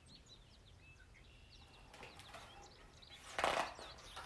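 A brief rustle of paper about three and a half seconds in as a hardcover picture book is turned and its page flipped, over faint, scattered high chirping in the background.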